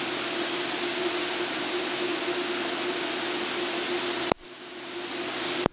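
Steady cockpit noise of an Extra 300L aerobatic plane in flight: an even rushing hiss of engine and airflow with a low hum beneath. It drops out abruptly about four seconds in and swells back up.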